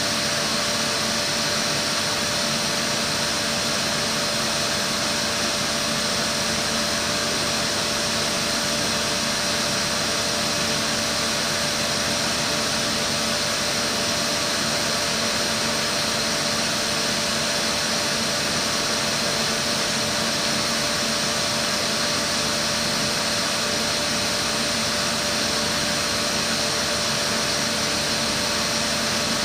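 Matsuura H.Plus-630 horizontal machining centre running with its Komet KomTronic facing head turning a part: a steady mechanical hum with a constant whine, unchanging throughout.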